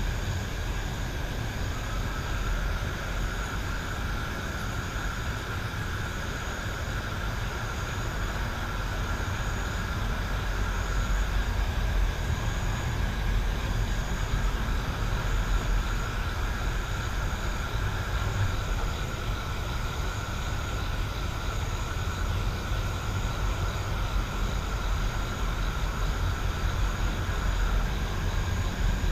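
Night-time countryside ambience: a steady low rumble under a faint continuous high trill, with a short high chirp repeating about every second and a half.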